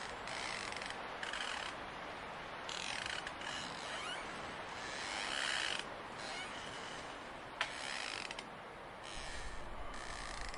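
Spooky Halloween sound-effects track of mechanical creaks and clicks that change every second or so, with one sharp click about seven and a half seconds in and a low rumble joining near the end.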